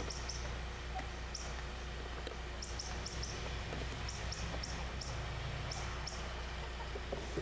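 Small bird chirping in quick high-pitched clusters of two to four notes, repeated every second or so, over a low steady hum.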